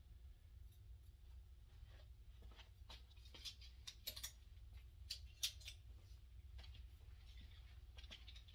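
Near silence with faint scattered clicks and rustles of clothes and hangers being handled, over a low steady hum.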